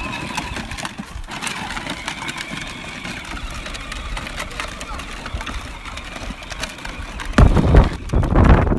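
Battery-powered ride-on toy tractor driving over dirt, its electric drive giving a steady whine. About seven seconds in, a much louder low rumbling with knocks takes over.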